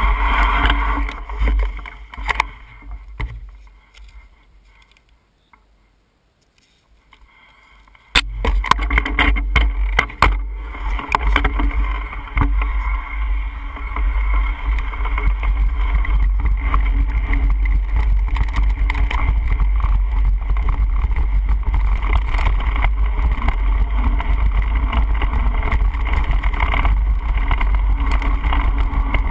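Mountain bike riding downhill, heard through a handlebar-mounted action camera: a loud rumble of wind on the microphone with tyre and frame rattle. It drops almost to quiet about three seconds in, then comes back suddenly about eight seconds in with a run of sharp clicks and knocks as the bike hits rough trail.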